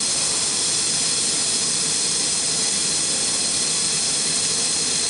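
A steady, loud rushing hiss, strongest high up and unchanging throughout.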